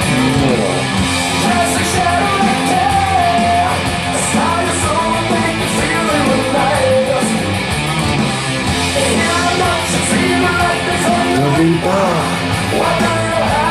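Rock music with singing, playing loud and steady.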